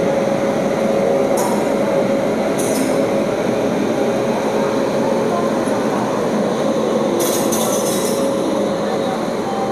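WAP-7 electric locomotive and its coaches rolling slowly past the platform as the train pulls out: a steady rumble of wheels and running gear with a constant hum, and a few brief high-pitched squeals.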